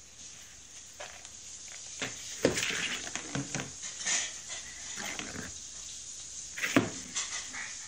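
A cat playing inside a cardboard box: irregular thumps and scratches of its paws and body against the cardboard, with the loudest knock near the end.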